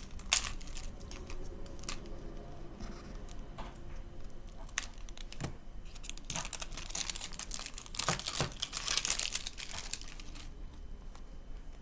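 Plastic wrapping on a Mini Brands toy capsule being peeled and torn open by hand: crinkling and crackling with scattered sharp clicks, busiest about two-thirds of the way in.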